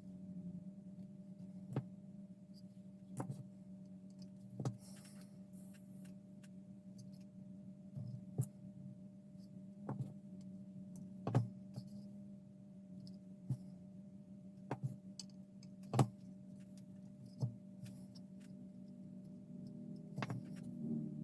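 Light, irregular clicks and taps from small parts being handled while fiber optic strands are fed into a model, over a steady low hum.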